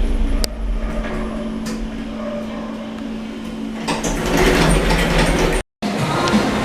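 Older MP lift running with a steady hum and low rumble and a couple of light clicks. About four seconds in it turns louder and noisier as the automatic doors slide open. The sound drops out completely for a moment near the end.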